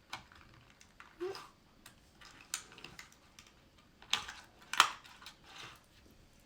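Scattered small clicks and taps of plastic toy packaging and tiny toy cars being handled, with two sharper clicks about four and five seconds in.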